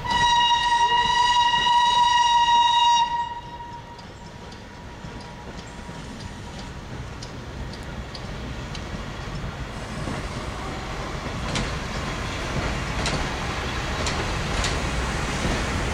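Steam locomotive 625 100 (FS Class 625) sounds its whistle in one steady, single-pitched blast of about three seconds. Then the train rolls on with a steady rumble and sharp clicks of wheels over rail joints and points, getting louder toward the end.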